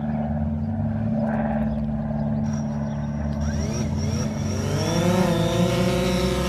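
Small electric motors humming steadily, then spinning up with a rising whine about three and a half seconds in, settling at a higher pitch.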